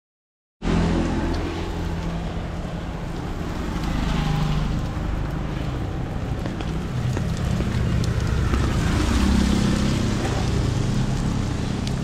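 Steady rain falling on a wet street, over a low rumble of traffic; it starts abruptly about half a second in.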